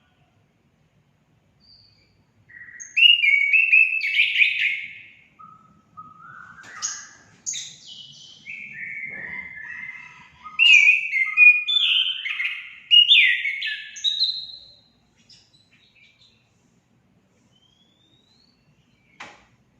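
Orange-headed thrush (anis kembang) in full song: a long, varied run of quick whistled and chattering phrases that stops about fifteen seconds in. One short click near the end.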